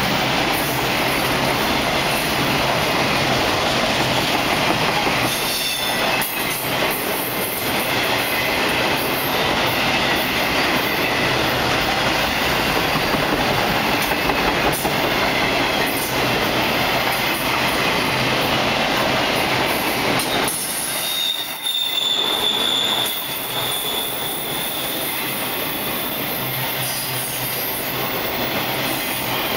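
Empty autorack freight cars rolling past close by: a steady rumble and clatter of wheels on rail, with a brief high wheel squeal about two-thirds of the way through.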